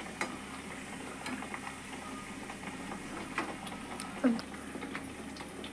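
Hot oil crackling with scattered small pops around a maize-flour kachori deep-frying in a kadhai, with occasional taps of a slotted metal spoon. A short, louder sound that drops in pitch comes about four seconds in.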